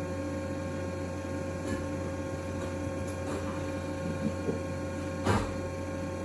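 Steady electrical hum with a few scattered knocks, the loudest a single thump about five seconds in.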